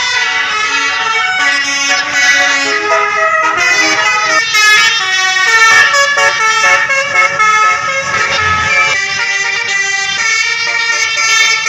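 Bus telolet horn of the basuri type, a multi-tone air horn, playing a tune: several tones sound together and step from note to note.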